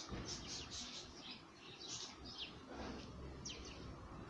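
Small songbirds chirping faintly: a run of short, high, falling notes, several a second, with a few brief pauses.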